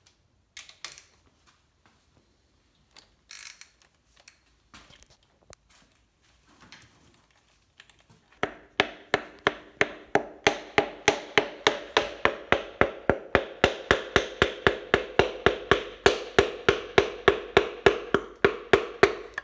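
Rapid, steady hammer tapping on a connecting rod to drive a piston out of its bore in a Ford 5.0 V8 block, about four blows a second starting about eight seconds in, each with a short metallic ring. Before it come a few scattered light clicks of tools.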